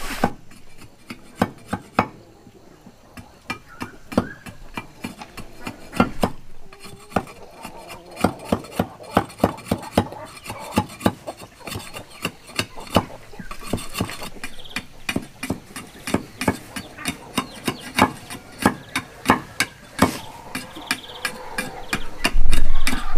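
A cleaver chopping and shaving a small piece of wood on a wooden chopping block: sharp irregular knocks, about two or three a second, with a louder thump near the end.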